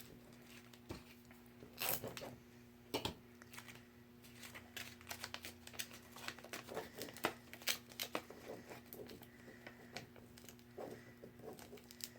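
Cut adhesive vinyl and cardstock being handled: vinyl peeled from its backing and paper crinkling, heard as irregular short crackles and taps over a steady low hum.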